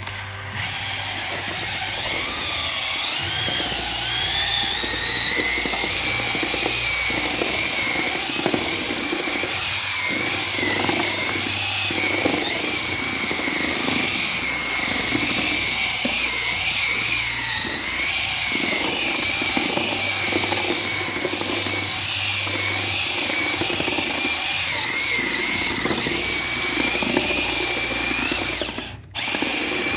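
Makita BHP453 cordless drill running a paddle mixer in a bucket, churning powder into a thick paste: a steady motor whine that climbs in pitch as it gets up to speed, over the scrape and slosh of the mix. It stops for a moment near the end and starts again.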